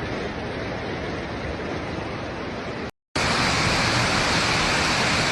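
Steady rushing water noise in two clips: a short break about three seconds in, after which it is louder and hissier.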